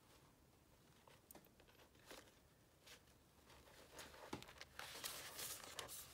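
Faint rustling and handling of paper pages as thread is drawn through the punched holes while hand-stitching a journal signature, with a few small ticks; the rustling grows busier about four seconds in.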